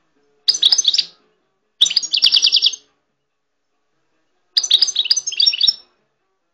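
Caged songbird singing in three short bursts of quick high twittering trills, the second ending in a rapid run of even repeated notes.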